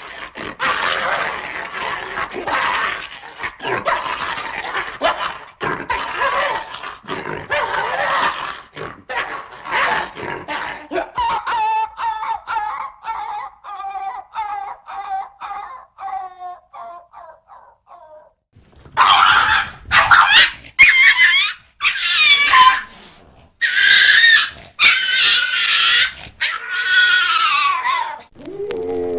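Dog sound effects: about ten seconds of dense, rough barking, then a run of short pitched calls, about two a second, that fall in pitch and fade out. After a brief gap come loud, high calls, the last one falling in pitch.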